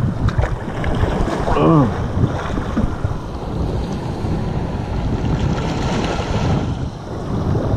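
Rough surf sloshing and breaking over a rock, with wind buffeting the microphone.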